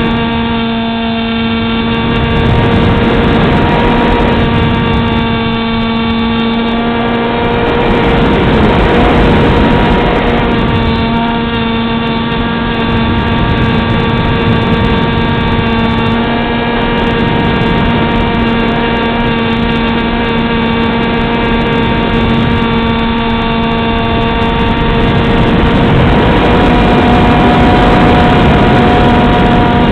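Electric motor and propeller of a Beta 1400 model plane, recorded by its onboard camera: a steady whine of one pitch over rushing wind noise. The whine fades for a couple of seconds about eight seconds in, then comes back.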